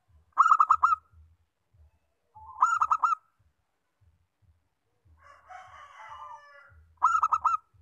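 Zebra dove (perkutut) singing: three short phrases of four or five quick notes that each rise and fall in pitch, one about half a second in, one about two and a half seconds in, and one near the end. A fainter, jumbled sound comes between the second and third phrases.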